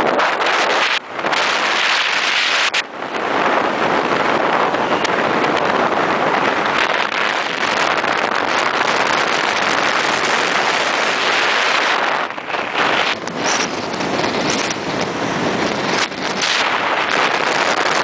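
Wind rushing over the microphone of a camera carried on a moving motorcycle, a loud steady roar of air that dips briefly a few times.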